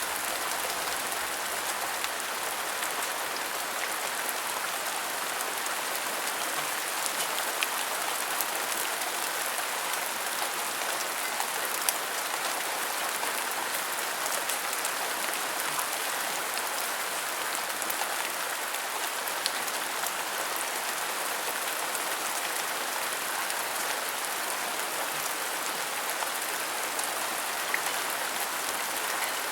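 Steady rain falling, an even hiss with scattered individual drops ticking, and no thunder.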